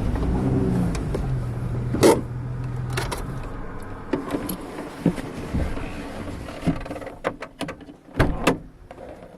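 Four-wheel-drive vehicle's engine hum fading out in the first second or two, then sharp clicks and knocks, one loud click about two seconds in and a cluster near the end, typical of handling and door noises inside the cab.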